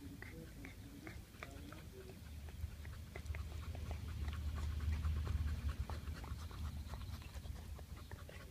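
Caucasian Ovcharka–Alabai mix puppies making short whines in the first couple of seconds, then many small clicks and knocks from the puppies at play, with a low rumble in the middle.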